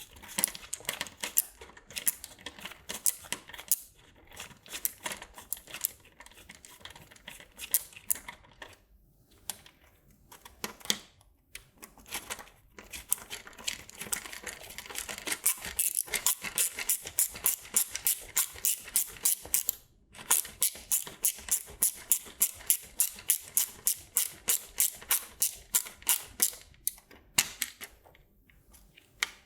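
Hand driver clicking as it tightens hex-head bolts onto nylon nuts: runs of rapid, even clicks, about five a second, broken by short pauses.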